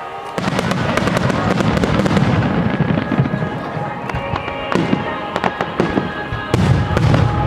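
Aerial fireworks shells bursting in a rapid barrage, many bangs and crackles overlapping, starting suddenly about half a second in. A louder cluster of bursts comes near the end.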